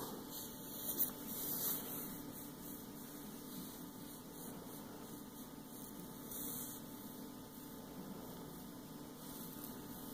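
Low steady hum over faint hiss, with a brief bump about a second in.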